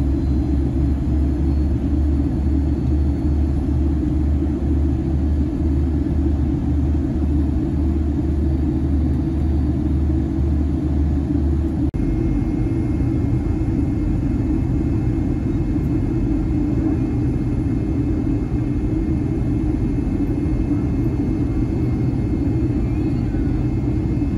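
Steady cabin roar of a Boeing 757-300 on its descent, jet engines and rushing air heard from a window seat beside the engine. About halfway through the drone changes abruptly, the deep hum giving way to a slightly different rumble with a faint high whine on top.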